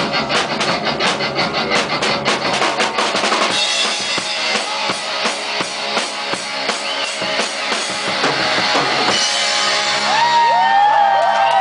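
Live rock band playing an instrumental passage: a drum kit hammering steady, even beats with bass drum and snare under electric guitar. Near the end the drumming thins and long, wavering held tones come in over the band.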